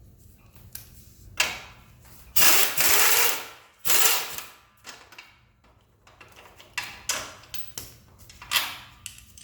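Pneumatic wrench spinning out an exhaust fastener on a motorcycle that has already been broken loose by hand, in three bursts of about a second each, followed by a run of short metallic clicks and knocks.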